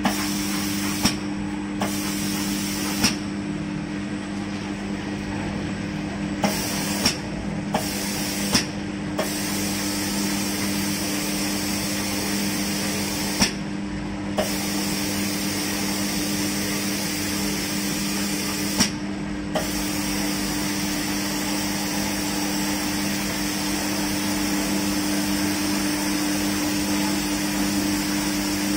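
Automatic spray-painting machine with a water-curtain booth running: a steady motor hum under a loud hiss of spray guns and falling water. In the first twenty seconds the spray hiss cuts off and comes back several times, each time with a sharp click. After that it sprays steadily.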